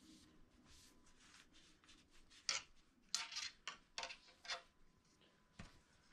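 A cloth rag rubbing along a fishing rod, then a quick run of small clicks and taps as the rod and gear are handled, and a soft knock near the end as a rod is laid down on the towel-covered bed.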